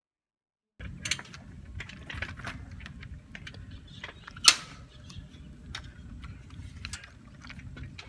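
Bicycle being handled, with mechanical clicks and ratcheting and one sharp click about four and a half seconds in, over a low rumble. The sound begins about a second in.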